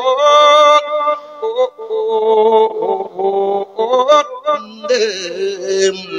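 A Buddhist monk's voice singing a sorrowful Thai verse sermon (thet klon) into a handheld microphone: long held, wavering notes that slide between pitches, broken by short breaths.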